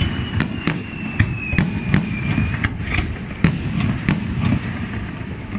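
Fireworks display: aerial shells and star mines bursting in quick, irregular succession, a rapid string of sharp bangs and crackles over a continuous low rumble. Through the first half a thin whistle slowly falls in pitch.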